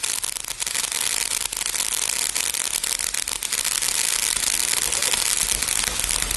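Safe and Sane ground fireworks spraying: a steady, loud hiss thick with fine crackling.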